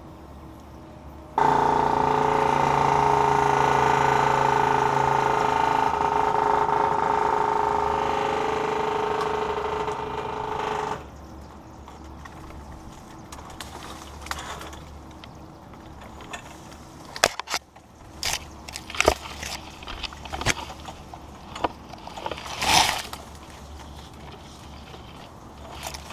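Aerial man lift's hydraulic drive running steadily with a whine for about ten seconds as the bucket is moved, starting and cutting off abruptly. Afterwards, scattered sharp clicks and knocks.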